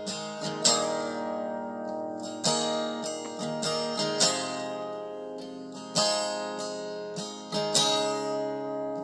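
Solo acoustic guitar strumming chords, with no voice. There is a strong strum roughly every one and a half to two seconds, each chord left ringing, and lighter strokes in between.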